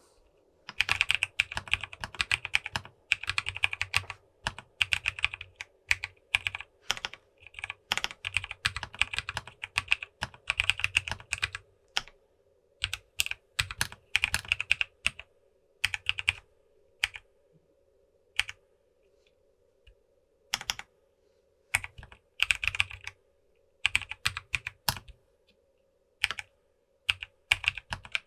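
Typing on a Fancylab FancyAlice66 mechanical keyboard with lubed Kailh Clione Limacina tactile switches in an acrylic case with POM plate and foam dampening, giving a thocky sound. The keystrokes come in quick runs with short pauses between them.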